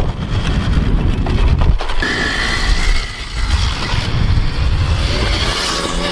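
Wind buffeting the microphone in a heavy low rumble, with an Alta electric dirt bike's motor on a sand paddle tire heard as a thin high whine that comes in about two seconds in as the bike spins through the sand.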